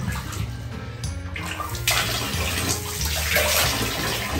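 Water splashing in a plastic basin as a hand swishes through it, then, from about two seconds in, a shower stream pouring steadily into the basin of water.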